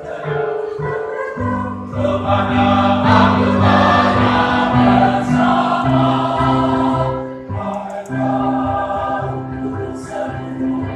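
A choir singing in harmony, several voice parts holding sustained chords that move together from one chord to the next.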